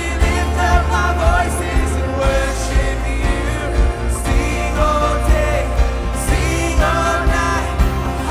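Live worship band playing a Christian praise song, with singing over drums, bass guitar, guitars and keyboards on a steady beat.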